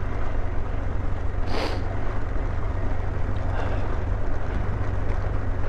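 KTM 390 Adventure's single-cylinder engine running steadily as the bike is ridden across wet, muddy grass, with a brief hiss about a second and a half in.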